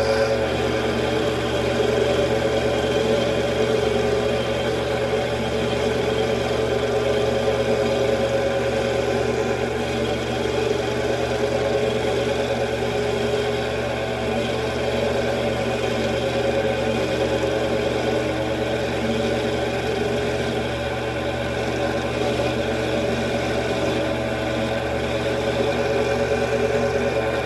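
Mini metal lathe running steadily through a cutting pass, its motor and gear train giving a constant whine made of several steady tones.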